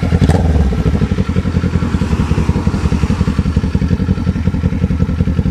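Kawasaki Z400 parallel-twin engine idling with a loud, evenly pulsing exhaust beat, easing down from a slightly higher level in the first second.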